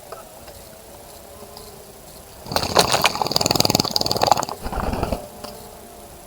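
A small bird bathing in a bird bath, splashing water with rapid wing flutters in one burst of about three seconds that starts about two and a half seconds in.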